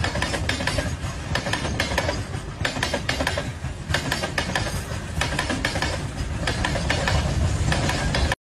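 Train running on steel rails: a steady low rumble with repeated clattering knocks as the wheels pass over rail joints. It cuts off abruptly near the end.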